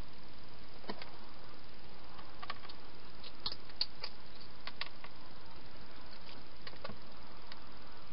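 A hedgehog eating at a feeding bowl: scattered, irregular crunching clicks over a steady hiss.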